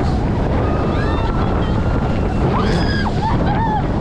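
Wind buffeting the microphone over the rush and splash of water beneath a fast-moving towed inflatable ride boat: a steady, loud rushing noise. Faint raised voices rise over it about a second in and again near the end.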